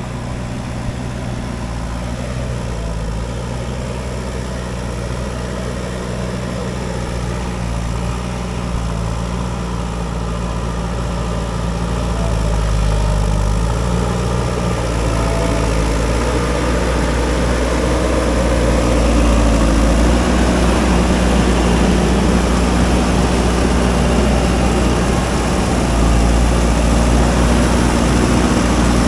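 JCB 3DX backhoe loader's diesel engine running steadily, then revving up and getting louder about halfway through and again a little later as the machine works.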